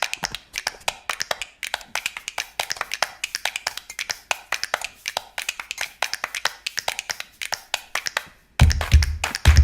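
Wire whisk clicking rapidly against a mixing bowl, about six to eight sharp ticks a second, while the wet batter is mixed. Near the end, music with a heavy bass beat comes in.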